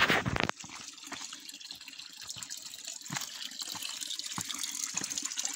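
A thin stream of water pouring and splashing into a shallow rocky pool, a steady hiss that grows slowly louder toward the end. A short, loud rustle right at the start.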